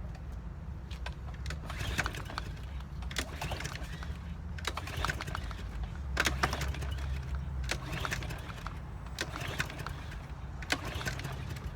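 Hands working on a push lawn mower: scattered sharp clicks and clanks of metal and plastic parts being handled, over a steady low rumble.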